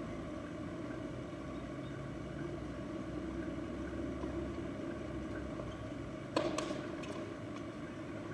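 Steady low background hum, with one sharp tennis-ball impact about six seconds in, followed by a few faint ticks.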